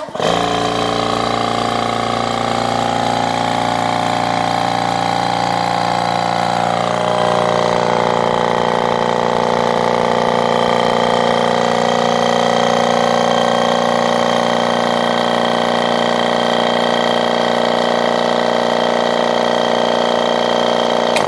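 Gast twin-head electric vacuum pump switching on and running steadily as it draws a vacuum on its reservoir tank, with a slight drop in pitch about seven seconds in. It cuts off suddenly at the very end as the digital vacuum switch reaches its cutoff near 25.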